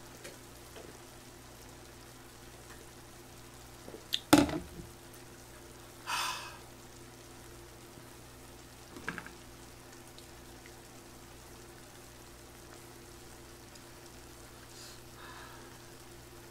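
A plastic cup set down hard on the table with a sharp knock about four seconds in, followed by a short breathy hiss and a lighter click a few seconds later, over a steady low hum.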